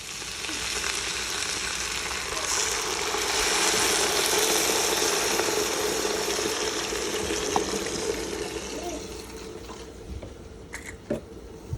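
Chickpeas sizzling in hot oil in a frying pan: a steady hiss that swells over the first few seconds and then slowly dies down, with a few light clicks near the end.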